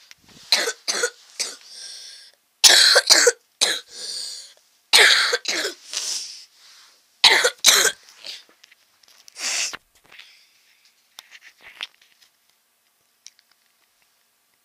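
A person's voice making about a dozen short, breathy bursts, coughing and grunting sounds rather than words, which die away to a few faint ticks near the end.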